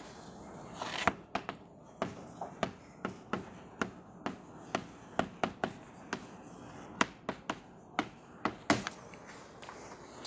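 Chalk on a chalkboard while a line of text is written: a quick, irregular run of sharp taps and short scratches, about two or three a second. It stops about nine seconds in.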